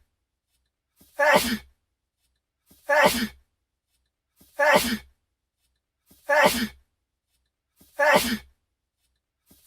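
A young man's sneeze, the same short sneeze looped over and over about every 1.7 seconds, each with a quick intake of breath just before it. There are five full sneezes, and a sixth begins at the very end.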